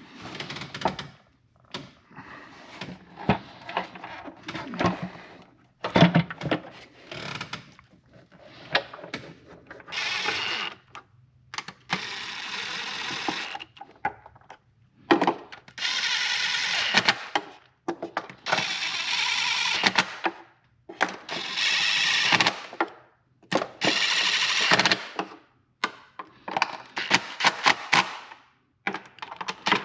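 Power tool run in short bursts of one to two seconds, about six times, on engine bolts, with clicks and knocks of sockets and hand tools between the bursts.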